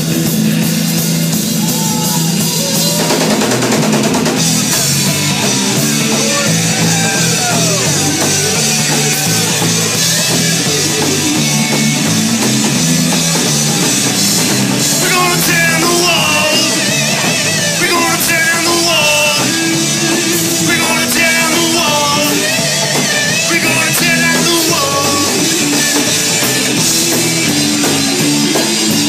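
Rock band playing an instrumental stretch with drums and guitar. A wavering lead melody comes in about halfway through.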